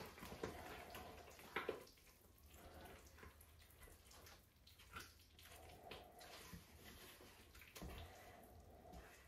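Faint sloshing and dripping of wet glaze being mixed in a bucket, with a few soft knocks.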